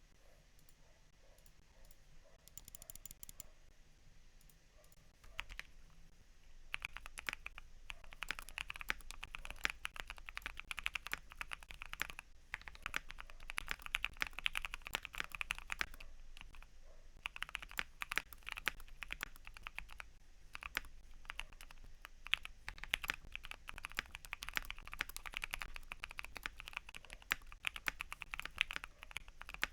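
Modded Keychron Q1 mechanical keyboard with lubed Durrock T1 Dark Amber tactile switches being typed on, with masking tape in the case to dampen ping. After a few quieter seconds, fast typing starts about five seconds in and runs as a dense, continuous stream of keystrokes.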